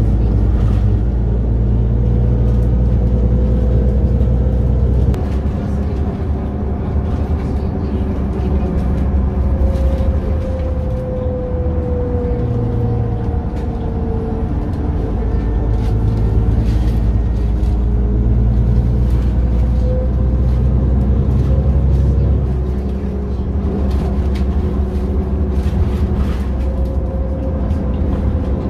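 Interior noise of a NefAZ 5299 city bus under way: a steady low engine drone with road noise. The drone eases off about five seconds in and builds again midway, and a faint whine slowly rises and falls.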